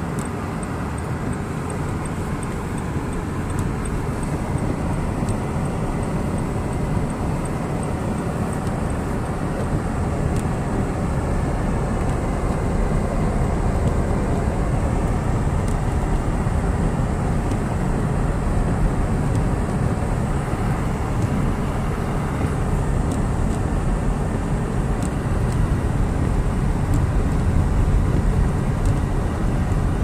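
Steady in-cabin road noise of a car driving on snow-covered roads: engine and tyres on packed snow. It grows slightly louder as the car picks up speed after the turn.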